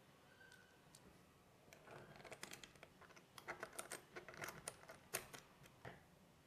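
Faint, rapid clicking and tapping of small metal parts being handled: bearing shells, caps and screws being fitted around the crankshaft of a miniature V8 engine block. The clicks start about two seconds in and die out near the end.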